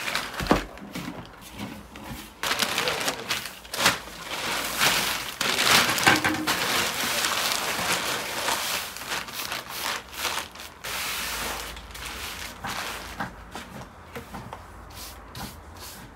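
Clear plastic sheeting rustling and crinkling as it is wrapped around a large mass of samsa dough and pressed down by hand, with a knock about half a second in.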